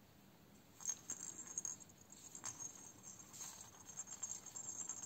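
Faint rattling jingle from a crocheted baby rattle as it is turned in the hands, starting about a second in, with a few soft rustles of yarn and crocheted fabric.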